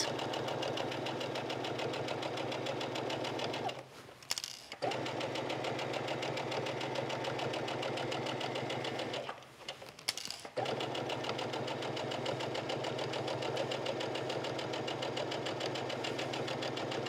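Brother electric sewing machine stitching a seam at a steady speed, the needle's rapid rhythmic running stopping briefly twice, about four seconds in and again near ten seconds, before starting up again.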